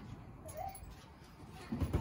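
Dull low thumps of children bouncing on a trampoline mat, several close together near the end, with a short high-pitched cry about half a second in.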